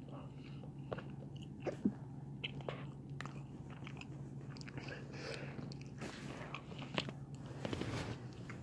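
Quiet chewing and small crunching mouth sounds of a person eating a fresh lemon drop pepper, a few soft clicks and crackles spread through, over a faint steady hum.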